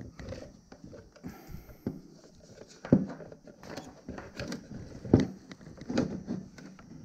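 Hard plastic parts of a fuel pump module being handled and fitted together on a wooden workbench: a run of light clicks and knocks, the loudest about three and five seconds in.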